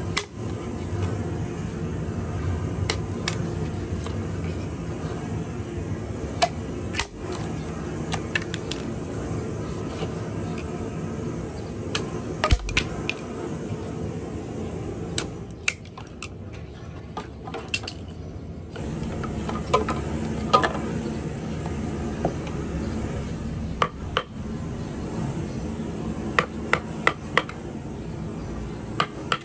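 A broad knife chopping and knocking into a green bamboo pole against a wooden block, cutting out notches: sharp, irregular knocks and clicks over a steady low background hum.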